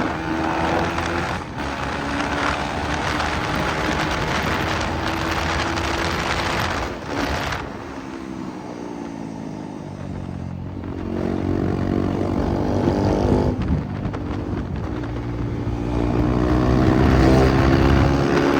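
KTM Duke 390's single-cylinder engine running on the move, with wind rushing over the microphone. About eight seconds in the engine note drops away, then it climbs again as the bike picks up speed.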